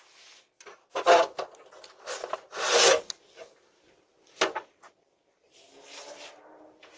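Several short bursts of rough scraping, the loudest about a second in and just before three seconds in, with a sharp one past four seconds and a fainter, longer one near the end.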